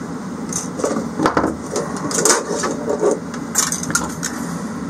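Irregular clicks and scrapes of the diesel heater's metal fuel pickup tap being worked by hand through a tight hole in the fuel tank, over a steady low hum.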